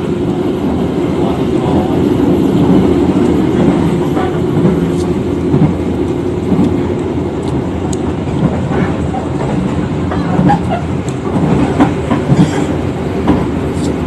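Passenger train carriage running at speed, heard from inside: a steady rumble of steel wheels on rail with clickety-clack over the rail joints and a few sharper clacks near the end.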